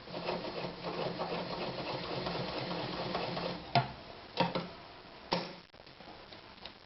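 Anker Phoenix Excelsior ZZ 151 sewing machine running a straight stitch at a steady, rapid rate for about three and a half seconds, then stopping. A few sharp clicks follow.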